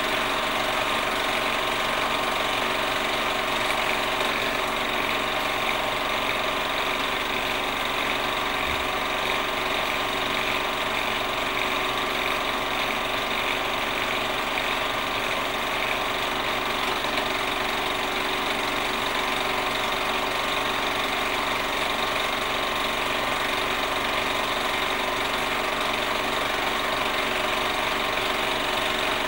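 A machine running steadily: an even mechanical whirr and clatter with several fixed hum tones, unchanging throughout.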